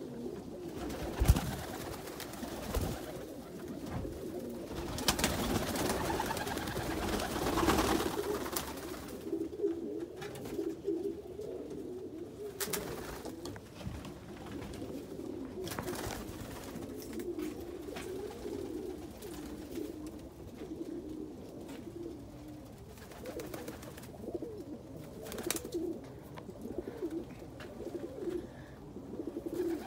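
Domestic pigeons cooing continuously in a loft. There is a sharp knock about a second in, the loudest moment, a stretch of rustling noise in the middle, and a few further clicks.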